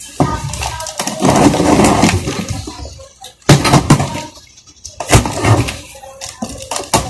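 Cardboard box being cut open and handled: scraping and tearing of cardboard and packing tape for about a second and a half, then several sharp knocks as the box is pulled about.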